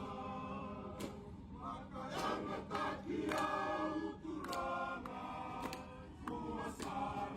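A group of men singing together, a choral song held in long notes, with sharp clicks at intervals.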